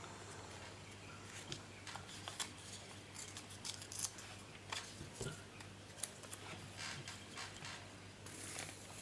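Faint rustling and light clicks of small paper scraps and lace being handled and pressed together, then a brief hiss near the end as a glue bottle is squeezed.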